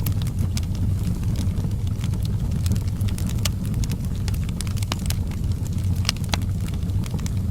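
Fireplace fire crackling, with frequent irregular sharp pops over a steady low rumble.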